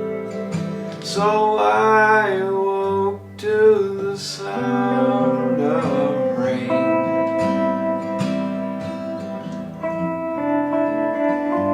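Music: an acoustic guitar song with held chords, and a voice carrying a wavering, wordless melody through the first half.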